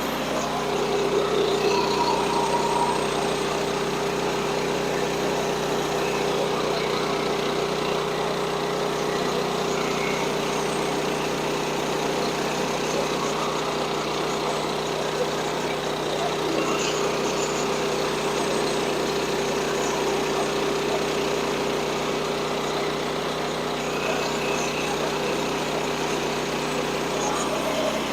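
Small gasoline engine of a portable bandsaw sawmill running steadily at a constant speed.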